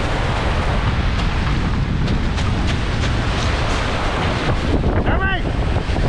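Strong wind buffeting the microphone over waves breaking and washing along the shore, with a short high cry a little before the end.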